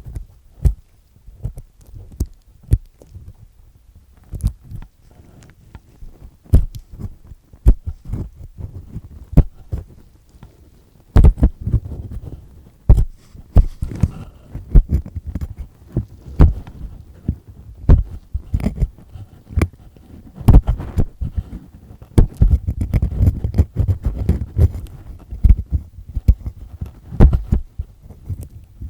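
Earpick with a black triple-disc tip scraping and grinding inside an ear canal, loosening and peeling off earwax. It makes an irregular run of scratches and sharp clicks, busier and louder around the middle and again near the end.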